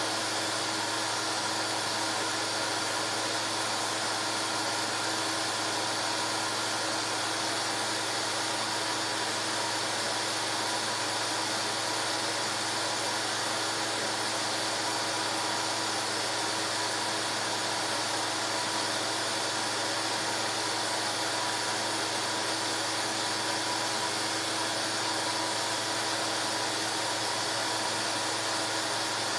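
A film projector's motor and cooling fan running: an even whir with hiss and a constant hum that never changes.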